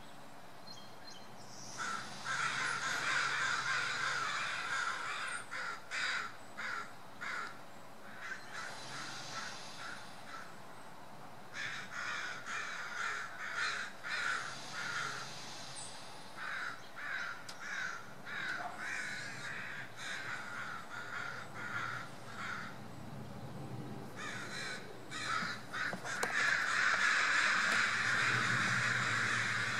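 Crows cawing over and over in several long bouts of rapid harsh calls, with short pauses between bouts; the calling is loudest near the end.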